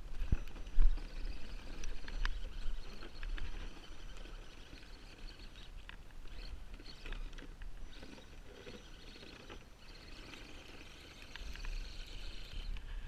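Storm wind buffeting the microphone in uneven gusts, with a steady hiss and scattered crackling ticks, and a few louder knocks about a second in.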